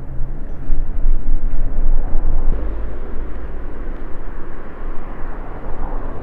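Recumbent trike rolling over cobblestones: a loud, rough rumble and rattle that gives way after about two and a half seconds to steadier tyre and road noise on asphalt.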